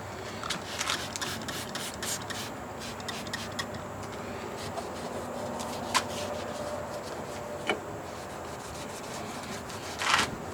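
Rubbing and scrubbing on a truck door handle, cleaning off leftover residue. The strokes come thick in the first few seconds, then give way to a few sharp clicks.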